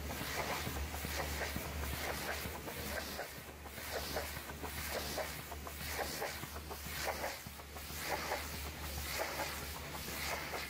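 Pressure washer spraying a water jet across a truck's metal cab panels, an uneven spattering hiss that rises and falls as the lance moves, over the steady low hum of the pressure-washer pump motor.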